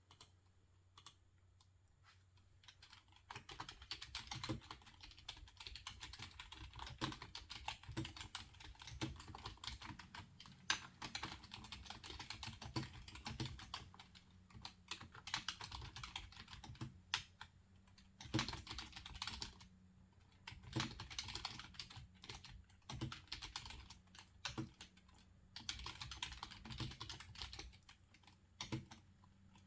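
Typing on a computer keyboard in quick runs of keystrokes, broken by short pauses of a second or two.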